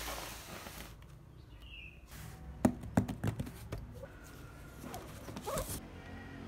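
A cardboard laptop box handled on a hard floor: a few sharp knocks and taps about two and a half to four seconds in, then softer rubbing and scraping as the box is turned over.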